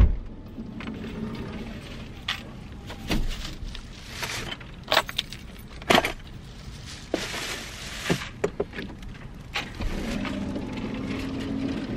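Shopping bags and boxed items being loaded from a shopping cart into a minivan through its open sliding door: plastic bags rustling, with scattered knocks and clicks as things are set down. A steady low hum comes in near the end.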